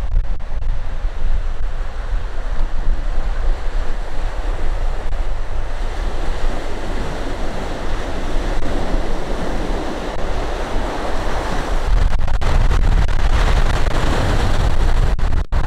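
Sea waves washing, with wind buffeting the microphone in a heavy low rumble that grows stronger late on.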